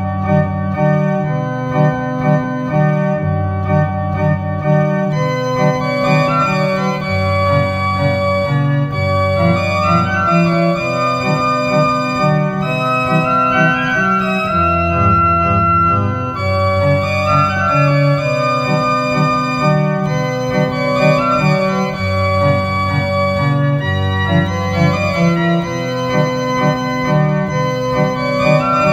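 Pipe organ improvising: held chords over slow-moving deep bass notes, each note sustained and changing every second or two, with a higher melody line moving above.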